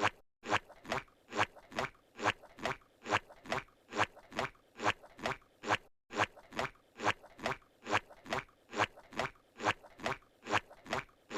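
Cartoon footstep sound effect of Squidward walking, repeating steadily at about three steps a second. It breaks off briefly just after the start and again about six seconds in, where the loop restarts.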